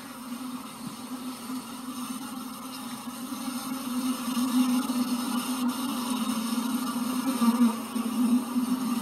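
Honeybees buzzing at a hive entrance, a steady wavering hum that grows louder about halfway through as the bees fly close to the microphone.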